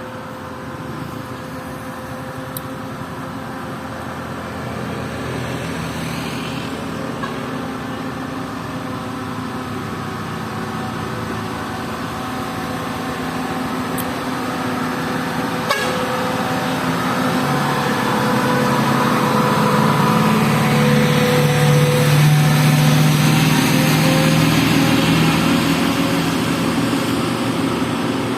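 Heavy vehicle engines labouring up a steep climb, growing steadily louder as they come closer, with a horn honking.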